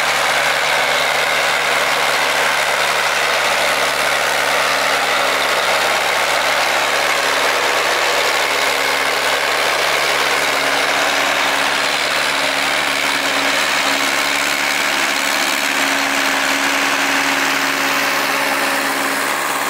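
LKT 80 forestry skidder's diesel engine running steadily at low revs, with no change in speed.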